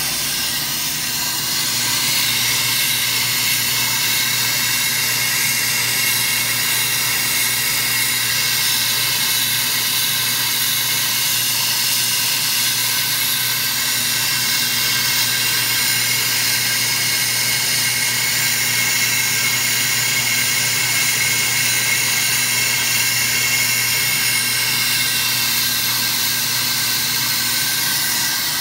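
AMMCO brake lathe spinning a large brake rotor while its cutting bits take a fast cut across the rotor faces. The lathe motor gives a steady hum under a continuous, high-pitched metallic hiss and whine from the cut.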